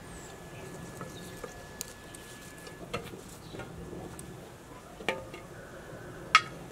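Several light knocks and clinks of hard objects being handled and set down on a wooden table, spaced a second or so apart. The loudest, near the end, is a short ringing clink like glass or ceramic. Underneath is a quiet outdoor background with a faint steady high tone.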